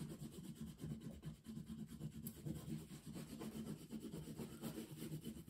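Crayon rubbing on paper in quick, continuous back-and-forth colouring strokes, a faint scratchy scrubbing sound.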